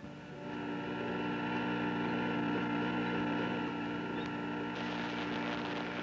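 Cartoon spaceship engine sound effect: a steady electronic hum of several held tones that swells in over the first half second, with a hiss joining it near the end.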